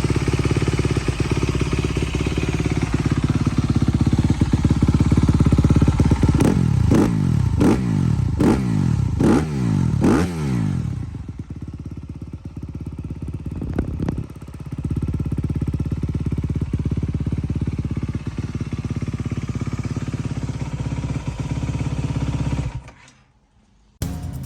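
2020 Honda CRF250R single-cylinder four-stroke dirt bike engine running through its exhaust. About six quick throttle blips come in a row, each rising and falling, about halfway through. It then settles to a steady run with one more blip, and the sound cuts off near the end.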